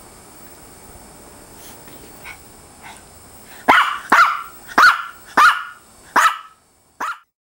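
A Maltese barking at play: two faint yips, then five sharp, high barks in quick succession about half a second apart, and one shorter, weaker bark near the end. It is play-demand barking, the dog asking to keep playing.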